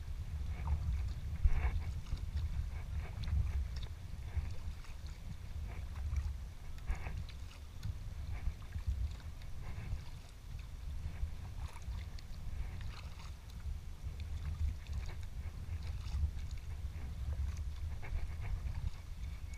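Sea kayak being paddled: irregular water splashes from the paddle blades every second or two, over a steady low rumble on the action camera's microphone.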